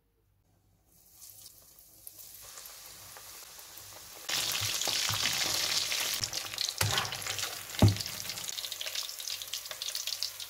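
Breaded chicken pieces deep-frying in hot oil, a crackling sizzle that starts about a second in and turns much louder a few seconds later. Two sharp knocks, the wire skimmer against the pan, come near the middle.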